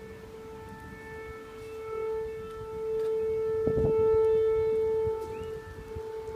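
Unexplained 'trumpet' sound in the sky: a long, steady horn-like drone held on one pitch, swelling louder in the middle and easing back toward the end.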